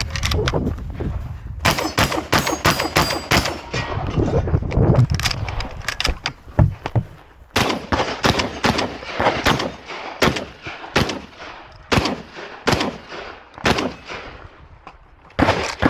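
Semi-automatic 12-gauge shotgun, a Beretta 1301 Comp Pro, firing a long string of shots during a timed practical-shooting stage: dense runs of shots at first, then shots about one to two a second, with a short pause before a final run near the end.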